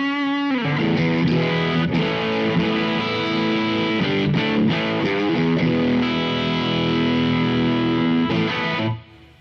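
Electric guitar played through a Mozztronics GD-1 Bone Breaker overdrive pedal: driven chords and single notes, with a wavering bent note at the start. The playing stops abruptly about nine seconds in.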